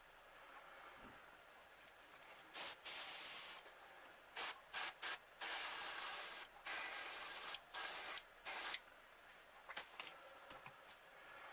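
Iwata airbrush spraying paint in about eight short hissing bursts, starting about two and a half seconds in and stopping near nine seconds. These are light passes of paint through a hair-clip stencil to lay down stripes.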